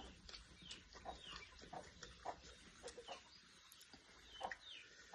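Faint bird chirps, short and falling in pitch, repeating every half second or so, with a few small clicks.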